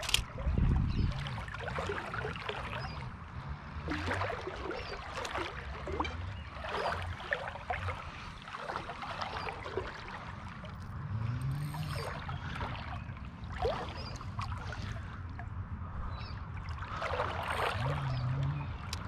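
River water sloshing and splashing in irregular bursts close by, as around a wading angler's legs, over a steady low rumble.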